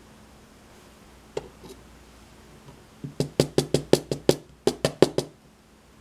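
A brass lock cylinder housing is knocked repeatedly against a hard surface to shake loose a pin and spring that won't come out. There is a single click about a second and a half in, then a quick run of about a dozen sharp knocks near the end.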